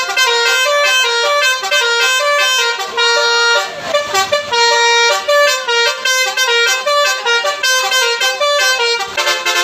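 Basuri telolet bus horn playing a quick melody, one short pitched note after another with hardly a break, at a loud level.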